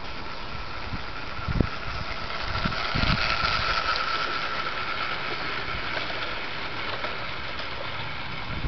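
O gauge model train running past on the track: a steady running hum with a mid-pitched whine that grows loudest as the locomotive passes, about three to four seconds in, with a few low thumps.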